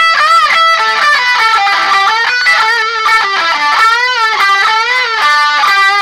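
Ibanez electric guitar strung with D'Addario EXL120BT Balanced Tension 9–40 nickel-wound strings, played as a lead phrase. String bends and wide vibrato on sustained notes frame a quicker run of notes in the middle, and the phrase ends on a held note.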